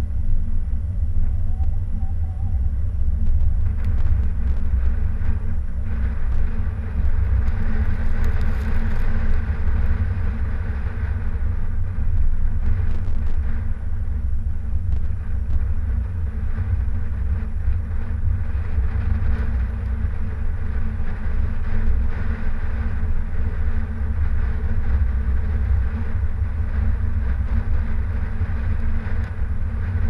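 Steady low rumble of a car driving along a snow-packed road: tyre, road and wind noise, swelling slightly about a quarter of the way in.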